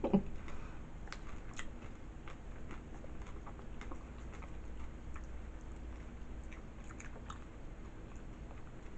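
A person chewing nachos close to the microphone: soft, irregular mouth clicks over a low steady hum.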